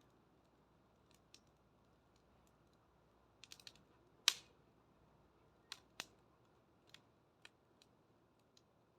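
Wood fire crackling: sparse sharp pops, with a quick cluster of them about three and a half seconds in and the loudest single pop just after.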